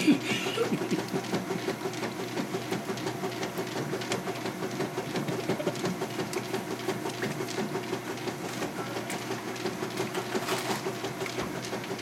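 Top-loading washing machine running, its agitator churning water in the tub with a steady, rhythmic mechanical sound.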